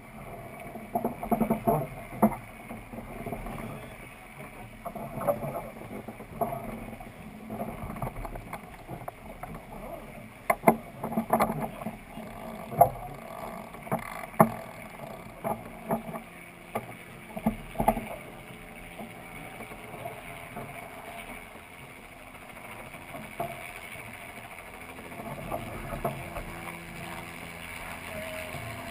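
Wind and water noise aboard the Dufour 45e racing yacht under sail, with scattered sharp knocks and clicks from crew handling gear on deck, bunched in the first couple of seconds and again from about ten to eighteen seconds in.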